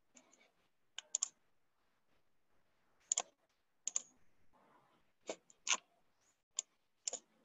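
Irregular clicking of a computer mouse and keyboard, about a dozen short sharp clicks, some in quick pairs, as slides are navigated on the computer.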